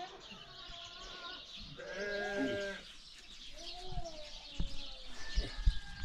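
Sheep bleating: several calls in a row, the loudest lasting about a second about two seconds in, with a few low thumps near the end.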